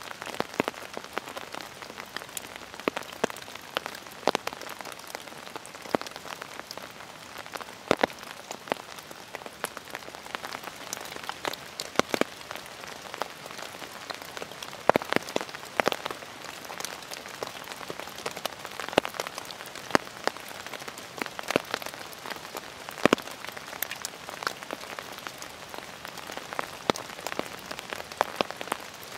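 Rain falling steadily, with heavy drops tapping irregularly on an open umbrella.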